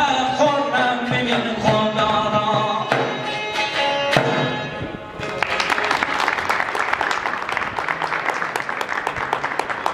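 Khorasani folk music: a man sings over long-necked dutar lutes for about the first five seconds. After a short dip, the dutars break into a fast strummed instrumental passage with a frame drum.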